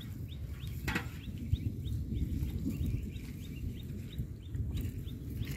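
A small bird chirping over and over, short high falling notes about three or four a second, over a low steady rumble, with a single knock about a second in.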